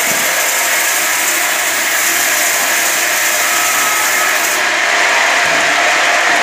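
Multi-blade rip saw running and cutting through a wood slab fed in by its belt rollers: a loud, steady sawing noise.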